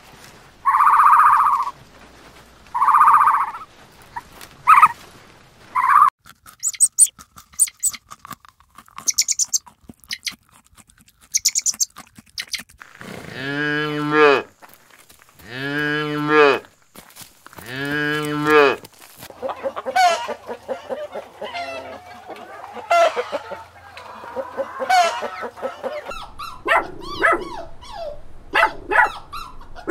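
Calves mooing: three long moos one after another, about halfway through. Before and after them come shorter animal calls, clicks and high chirps.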